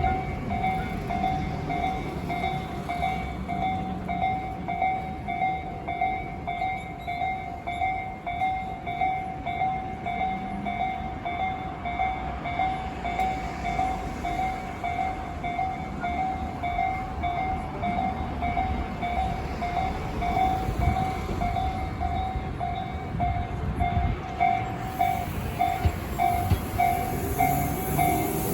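Japanese railway level-crossing alarm ringing on and on, an even, rapidly repeating electronic ding over a low rumble, at a crossing reported as broken.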